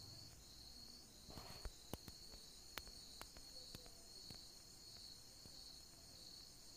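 Near silence with faint crickets chirping steadily, a high pulsing trill about twice a second, and a few soft clicks.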